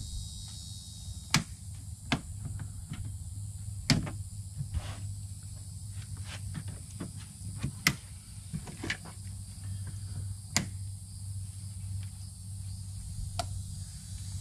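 Irregular sharp clicks and knocks, a handful of them loud, over a steady low hum and a steady high buzz.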